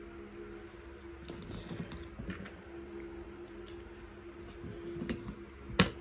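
Small metal and plastic Beyblade parts clicking and rattling as they are fitted together by hand, with one sharp click near the end. A low steady hum runs underneath.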